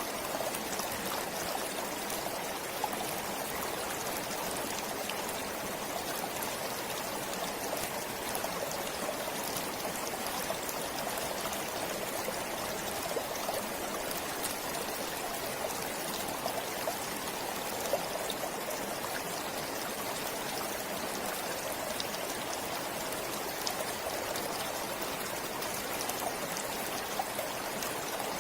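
A stream flowing steadily, a continuous babble of running water with small splashes throughout.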